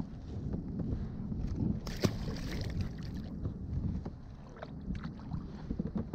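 Wind rumbling on a kayak-mounted GoPro's microphone, with scattered knocks and clicks, a sharp one about two seconds in.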